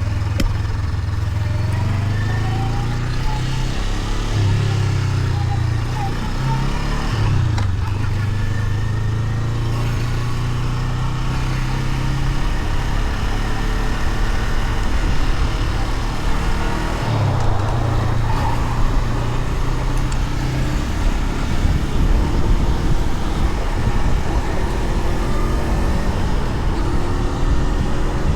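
Honda CL500's parallel-twin engine running through its stock exhaust, held at a steady low pitch with a few short throttle blips. After about twenty seconds it gives way to a rougher, slightly louder noise without a clear engine note.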